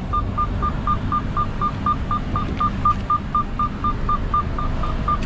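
A short electronic beep repeating evenly, about four times a second, stopping near the end, over the steady low hum of a truck cab on the move.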